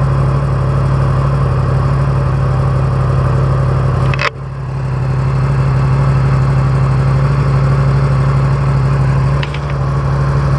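2017 Yamaha FZ-10's inline-four engine idling steadily just after starting, with a brief drop in level about four seconds in.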